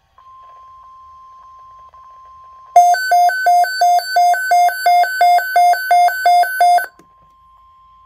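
Midland weather alert radio sounding its alarm for a severe thunderstorm watch: a faint steady tone of the weather radio alert plays first, then about three seconds in a loud pulsing two-tone beep, about three pulses a second, goes off for about four seconds and stops, leaving the faint steady tone.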